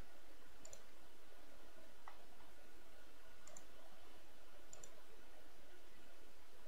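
Computer mouse clicking about four times, a second or so apart, over a steady low hiss.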